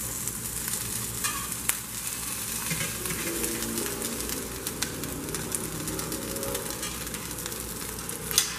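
Tortillas frying in a little olive oil in a pan on medium heat: a steady sizzle with a few crackles and a sharp click near the end.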